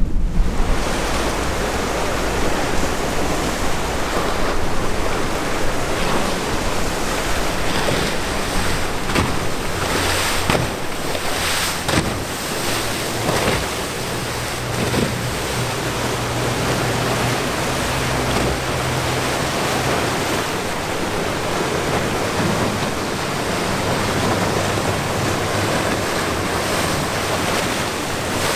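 Surf breaking and washing in a rough inlet, with wind buffeting the microphone; a boat's engine drones low underneath, most clearly through the middle and again near the end.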